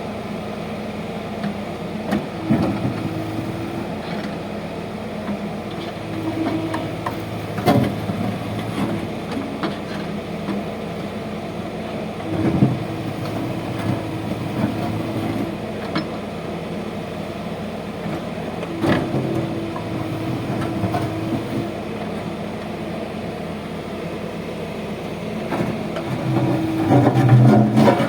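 JCB backhoe loader's diesel engine running steadily while it digs, rising under load in spells every few seconds, with a few sharp knocks and a louder stretch near the end.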